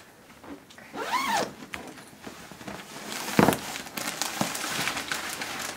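Zipper on a pillow's clear plastic packaging bag being pulled open, and the plastic rustling as the pillow is drawn out. One sharp rasp about three and a half seconds in is the loudest sound.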